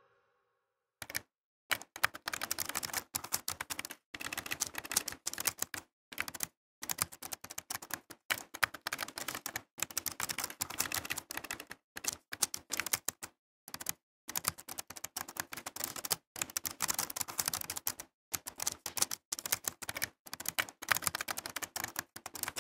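Rapid typing on keys, clattering in runs of a second or two broken by short pauses, starting about a second in.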